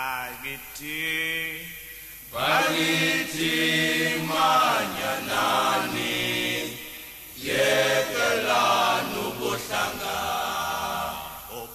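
Group of voices singing a chant-like song in harmony, in long held phrases that break off briefly about two seconds in and again about seven seconds in.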